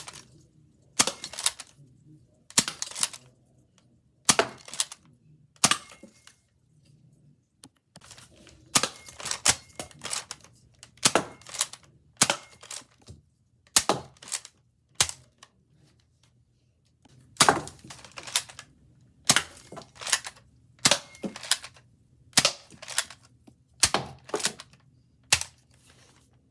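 Nerf Hammershot blaster being cocked and fired again and again: a string of sharp plastic clacks, often two in quick succession, about one a second. There are two short pauses, one about six seconds in and one about fifteen seconds in.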